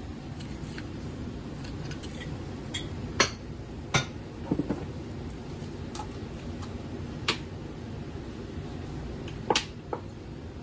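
Kitchen utensils clinking against dishes: about half a dozen sharp, separate clinks over a steady low hum, the loudest about a third of the way in and near the end.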